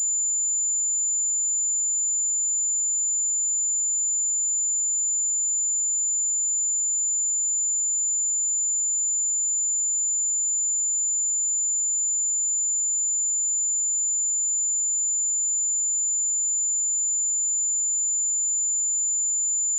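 A pure 7074 Hz sine-wave test tone, one steady high-pitched whistle held unchanged at a constant level.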